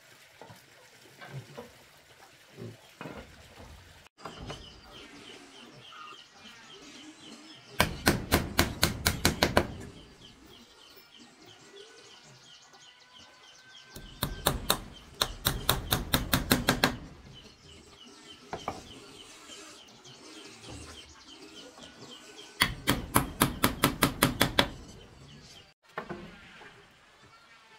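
Three bursts of rapid, even knocks from a hand tool striking, about five blows a second for two to three seconds each. The bursts come at about 8, 14 and 23 seconds. Birds chirp faintly in between.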